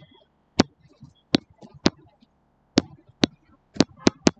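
A stylus tapping on a tablet screen while handwriting: about eight sharp, irregularly spaced clicks as the pen touches down for each stroke.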